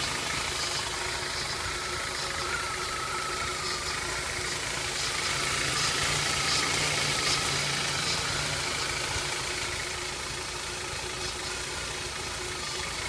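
BMW E46 316i's M43 inline four-cylinder engine running steadily, a little louder for a few seconds in the middle.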